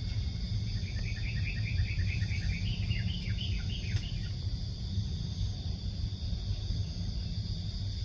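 A small bird giving a quick run of chirps, about four or five a second and rising slightly in pitch, for about three seconds, over a steady high insect drone and a low outdoor rumble.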